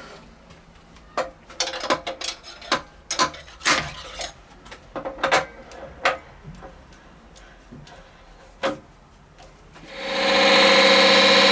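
Irregular light clicks and knocks of tools or a workpiece being handled, some in quick clusters. Near the end a much louder steady drone with a fixed pitch sets in abruptly.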